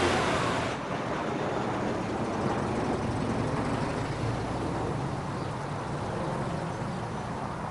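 Car engine running as the car pulls away and drives on, a steady drone with road noise that eases slightly about a second in.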